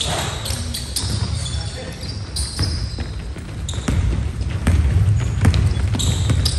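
Basketball dribbled on a hardwood gym floor, with sharp bounces, sneakers squeaking and indistinct players' voices echoing in the gym. It grows louder a little past halfway.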